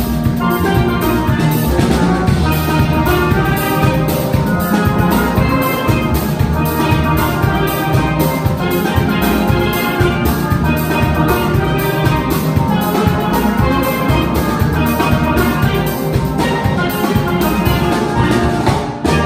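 A steelband of tenor, double-tenor, cello and bass steel pans, backed by a drum kit, playing a piece live with a steady beat. There is a brief break just before the end.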